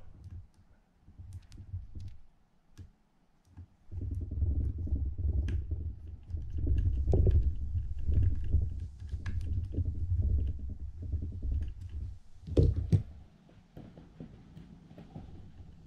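Handling noise of small tools and parts on a Penn International II 50T fishing reel during final reassembly of the handle nut and its retainer screw: scattered light clicks, a long stretch of low rumbling handling noise from about four to twelve seconds in, and a couple of sharper knocks just after that.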